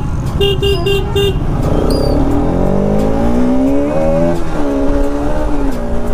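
A horn gives about four quick beeps in the first second or so. Then the Bajaj Pulsar RS 200's single-cylinder engine revs up as the bike accelerates, its pitch rising, dropping briefly at a gear change a little after four seconds, and rising again.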